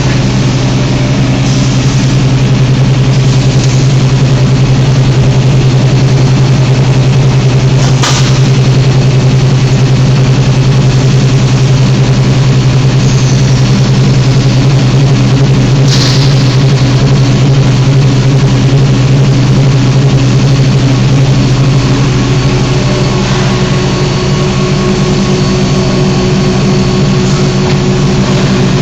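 Steady low mechanical hum of a running roller hearth furnace line's motors and drives, with two brief clicks about eight and sixteen seconds in.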